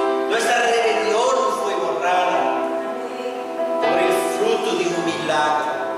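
A slow worship song: a voice sings melodic lines with long held notes over sustained electronic keyboard chords.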